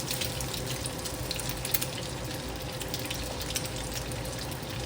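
Shark's fin dumplings frying in hot oil in a pan: a steady sizzle with many small crackles.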